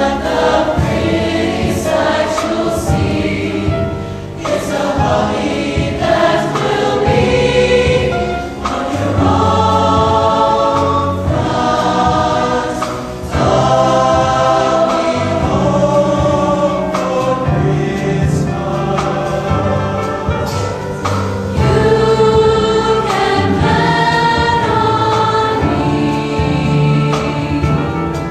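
A mixed choir of young male and female voices singing together in harmony, with sustained notes that change every second or two.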